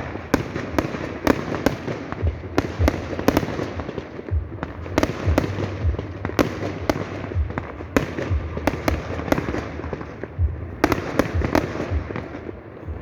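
Fireworks display: a rapid, irregular run of sharp bangs from bursting shells, about one or two a second, over a steady crackle.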